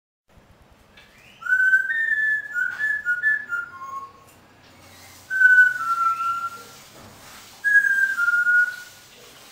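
A person whistling a tune in three short phrases, each a run of clear notes that step downward in pitch, with pauses between the phrases.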